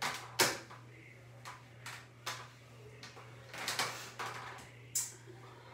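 A handful of short knocks and clicks, spaced about a second apart, as things are handled and set down at a bathroom counter or drawer, over a steady low hum.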